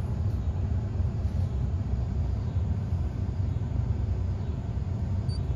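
Ford pickup truck's engine idling, heard from inside the cab as a steady low rumble.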